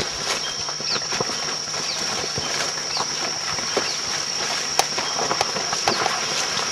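Footsteps and the rustle and snap of leaves and twigs as people walk a rainforest trail, over a steady high-pitched insect drone. A few short, faint falling chirps come through now and then.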